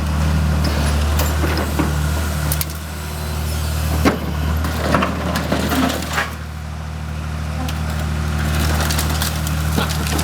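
O&K RH6 hydraulic excavator's diesel engine running steadily, with several sharp cracks and knocks about four to six seconds in and a patter of clicks near the end.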